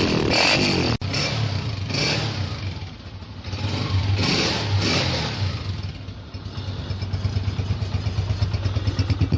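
Honda CG 125 (2021 model) single-cylinder four-stroke motorcycle engine revved in several quick throttle blips, then settling back to a steady idle with an even, pulsing beat.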